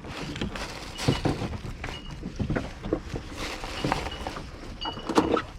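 Boat motor running with a steady low rumble, under irregular knocks and clatter of things being handled on deck and short high chirps.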